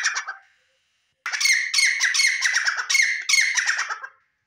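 Male gray francolin calling: the end of one phrase of loud, harsh repeated notes fades out, then after about a second's pause a longer run of the same notes follows for about three seconds.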